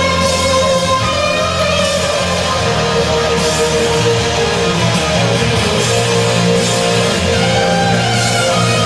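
Instrumental rock music without vocals: guitar holding long notes over a bass line.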